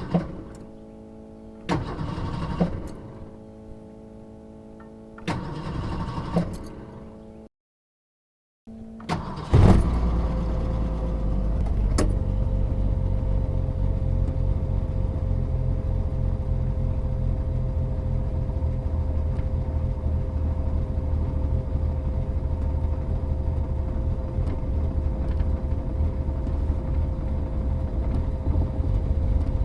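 A 1979 Mercury Zephyr being started. There is a steady tone with two short bursts of cranking, then a break. About nine seconds in the engine catches with a loud burst and settles into a steady idle.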